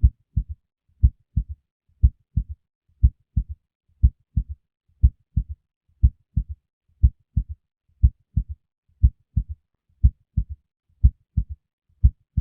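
Recorded heart sounds at about sixty beats a minute. Each beat is a strong first sound, then a second sound about a third of a second later, often followed closely by a fainter extra sound.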